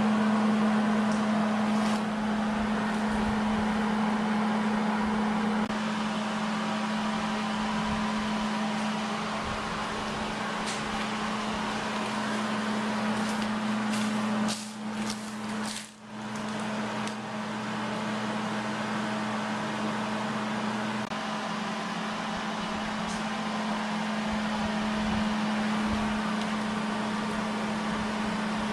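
Miller Millermatic 211 MIG welder laying a bead: a steady crackling arc over a constant hum, which breaks off briefly about halfway through and then starts again.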